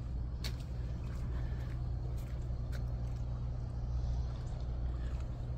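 Steady low hum of running ship machinery from vessels moored at the quay, with a few faint clicks.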